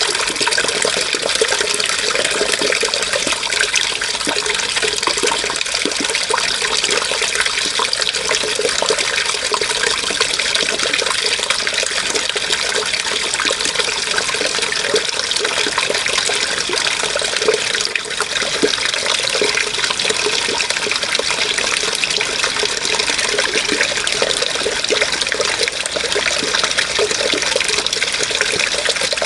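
Water flowing and splashing steadily, an even, unbroken rush with no pauses.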